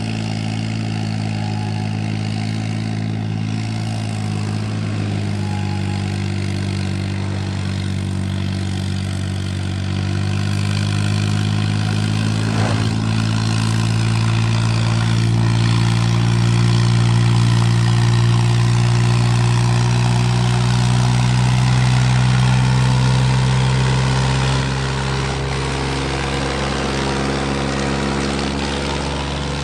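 New Holland 3630 tractor's three-cylinder diesel engine running steadily while pulling two loaded sugarcane trolleys, growing louder as it approaches and falling off suddenly about three-quarters of the way through as it passes.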